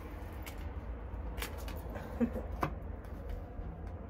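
Steady low rumble of traffic from outside, with a few light clicks and taps of tarot cards being handled.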